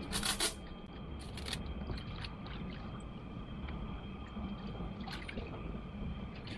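Cotton baby clothes being dunked and pressed into a plastic basin of soapy water: two short splashes in the first second and a half, then faint sloshing and dripping as the cloth is worked under.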